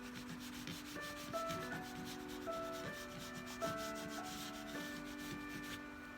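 Crayon rubbed back and forth on paper in quick, light colouring strokes, over soft background music with held notes that change every second or so.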